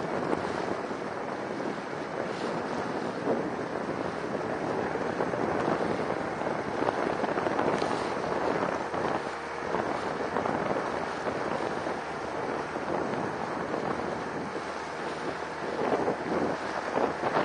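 Wind buffeting the microphone over choppy sea water: a steady rushing noise that swells and dips slightly.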